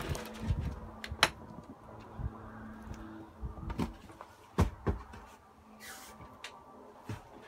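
Footsteps and knocks on the floor and fittings of a horse trailer's living quarters as someone steps inside: about six sharp knocks spaced irregularly, with a short hiss about six seconds in.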